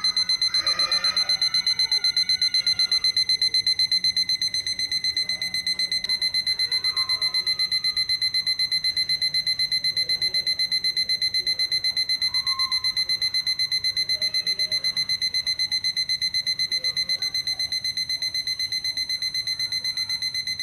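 Citizen 4ML400 wall clock's electronic alarm sounding: one steady high-pitched beep pulsing rapidly and evenly.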